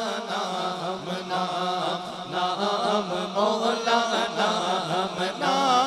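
A man singing a naat, a devotional poem in praise of the Prophet, solo into a microphone. The voice carries long, wavering, ornamented notes over a steady low drone.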